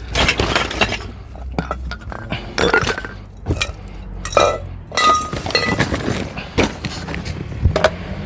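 Hard scrap pieces clinking and clattering irregularly as they are rummaged through and handled, with a few short ringing notes among the knocks.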